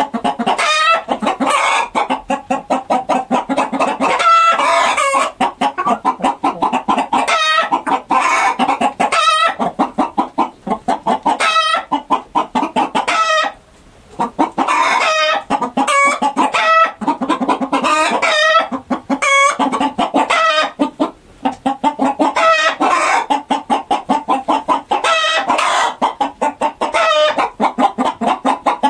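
Domestic chickens clucking continuously in a dense flock chorus of rapid, overlapping calls, with occasional longer cackles.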